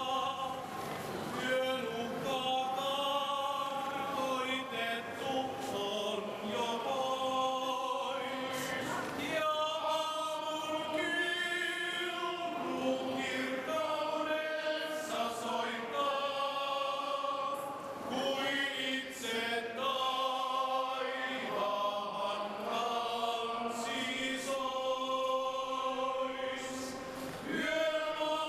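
A choir singing a slow song in long phrases of about nine seconds each, with short breaks between them.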